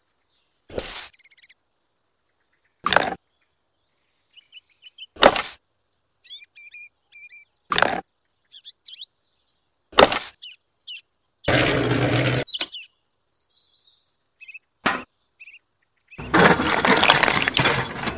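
Short scrapes of a small shovel in sand, one every two to three seconds, over faint birds chirping. Two longer, louder scraping noises come past the middle and near the end, the first with a low hum under it.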